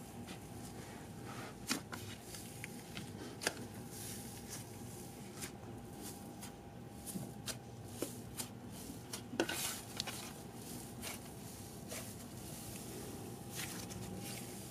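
Icee-texture slime being poked, kneaded and stretched by hand: soft squishing with scattered sharp crackles and clicks at irregular moments.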